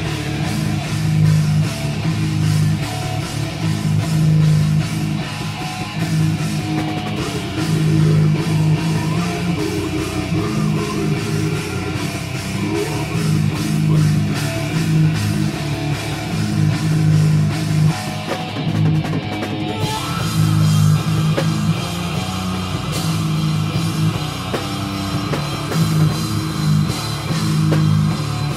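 A heavy metal band playing live in a rehearsal room: electric guitars over a drum kit. About twenty seconds in, the sound changes as the music moves into a new section.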